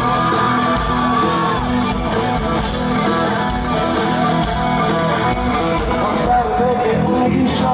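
Bangla rock band playing live through a concert PA: electric guitars over bass and drums, recorded from among the audience.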